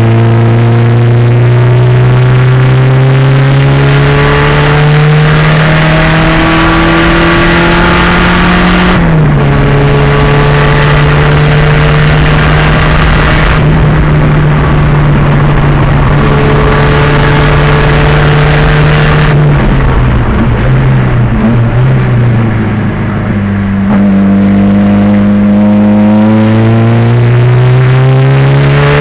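1987 Pontiac Fiero's 2.0-litre turbocharged engine under racing load, its note climbing slowly through a long pull, then holding. About twenty seconds in it drops away briefly as the driver lifts, then climbs again through the last few seconds.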